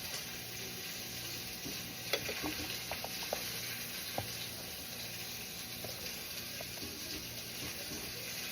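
Food sizzling steadily in a frying pan, with a few light clicks of a utensil against the pan about two to four seconds in.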